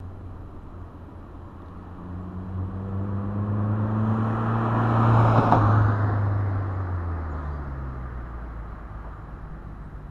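Toyota AE86 Corolla GT-S with an HKS Sport exhaust driving past. The engine note grows louder and peaks about five and a half seconds in, then drops in pitch and fades as the car moves away.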